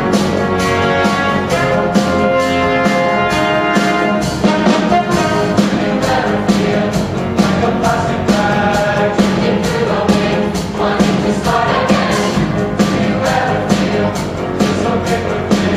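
Large mixed choir singing with instrumental accompaniment over a steady percussive beat.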